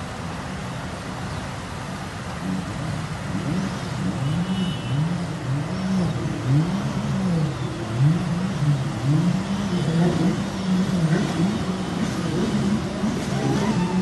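Jet ski engine revving up and down over and over as it runs through floodwater, over a steady rushing noise. The revving starts a couple of seconds in.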